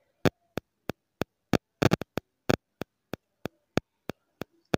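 Steady ticking: sharp, evenly spaced clicks about three a second, a few of them louder and doubled around the middle.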